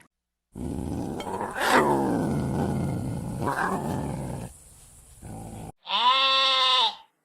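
A deep, rough animal growl lasting about five seconds, loudest about a second and a half in. Near the end comes a separate, clear, one-second bleating call.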